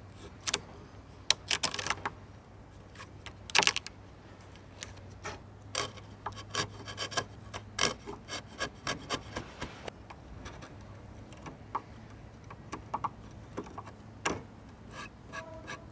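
Irregular wooden knocks, clicks and scraping as a timber batten is worked by hand to finish cutting out notches, with a faint low hum through the first half.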